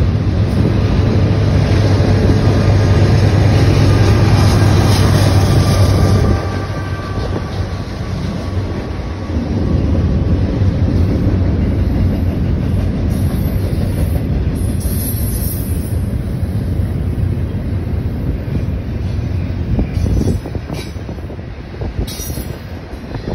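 Double-stack intermodal container train rolling past at close range: a continuous rumble of steel wheels on rail with a clickety-clack, loudest in the first six seconds, and a few sharp clanks near the end.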